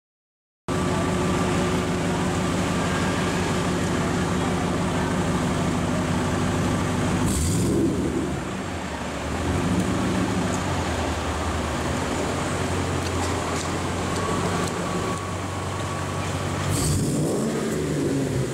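A matte black Ford Mustang's engine idles steadily, cutting in after a brief silence at the start. It is revved up and down about halfway through and again near the end.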